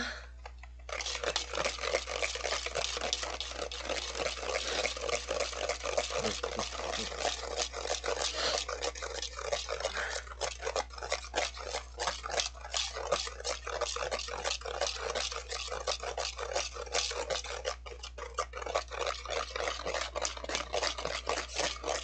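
Wire balloon whisk beating dalgona coffee mixture (instant coffee, sugar and water) by hand in a stainless steel bowl. Rapid, continuous strokes tick and scrape against the metal, starting about a second in. The mixture is partway through whipping and not yet stiff.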